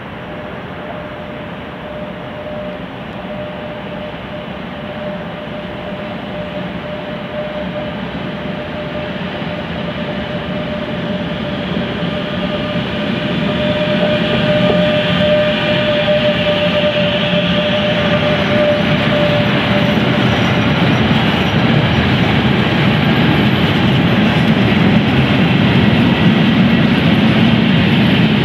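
DB class 185 electric locomotive approaching and passing with a mixed freight train of tank wagons and covered goods wagons, growing steadily louder as it nears. A steady whine runs under it and fades out about two-thirds of the way through, then the wagons rumble and rattle past on the rails.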